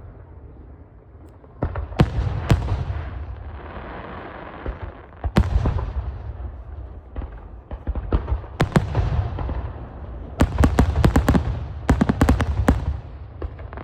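Fireworks going off: single sharp bangs at intervals, each followed by a low rolling rumble. About ten seconds in comes a dense volley of rapid crackling reports that lasts a few seconds.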